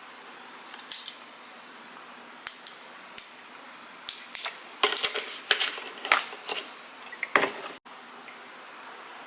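Cutlery clinking and scraping on a plate during a meal: a string of scattered light clinks, sparse at first and busier in the middle, cutting off suddenly near the end.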